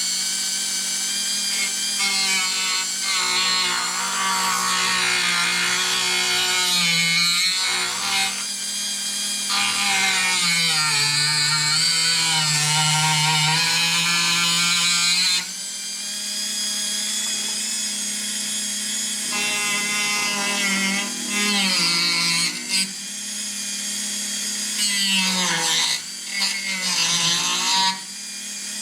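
Dremel rotary tool running at high speed and grinding, its whine dipping and wavering in pitch as the wheel bites. It is taking down the edges of a hole so a stud will fit.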